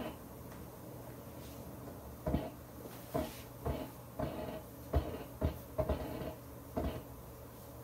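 Irregular knocks and taps on the kitchen counter as pretzel dough is cut into bite-size pieces, about ten over several seconds, some with a short clatter. A steady low hum runs underneath.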